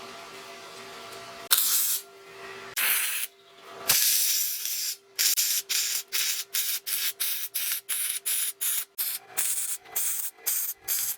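Abrasive rubbing strokes on a workpiece: a few longer passes, then quick even back-and-forth strokes, about three or four a second, like hand sanding or filing.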